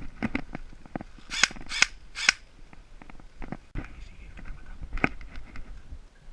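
Airsoft guns firing: three sharp pops about half a second apart, with lighter clicks and knocks before and after.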